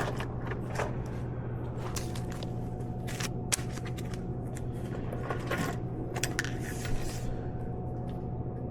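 Scattered clicks, taps and rustles of snack packages and vending-machine trays being handled during a restock, over a steady low hum.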